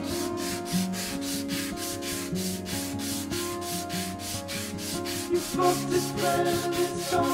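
A strip of abrasive paper pulled back and forth around a Harri Merimaa knife in a shoeshine motion, about four sanding strokes a second, over background music.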